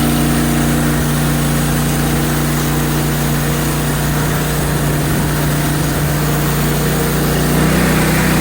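Portable band sawmill's engine running steadily at an even pitch.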